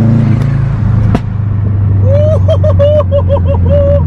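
Turbocharged 2012 Subaru WRX engine running, with a sharp click about a second in as the throttle closes, then the stock turbo fluttering in compressor surge, a pitched chatter of rapid pulses lasting about two seconds: with no blow-off valve, the boost surges back through the turbo.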